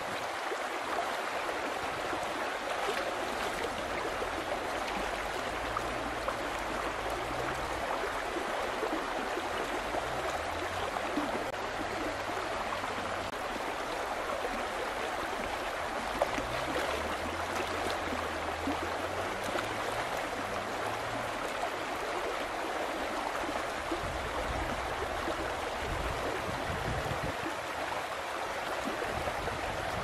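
Fast, muddy river water rushing and splashing over rocks: a steady, unbroken rush.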